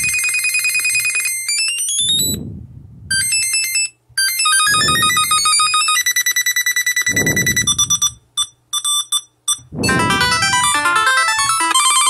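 Short electronic ringtone melodies from the Samsung Galaxy SmartTag2's melody list, played one after another, a new one every two to three seconds: chimes, rising sweeps and, near the end, quick runs of beeps. A soft thud comes at the start of each one as it is tapped.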